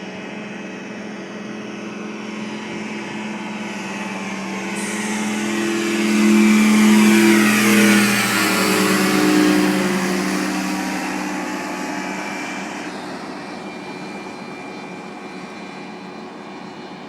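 Ultralight aircraft engine passing low overhead: it grows louder to a peak about seven seconds in, then drops in pitch and fades away as it recedes.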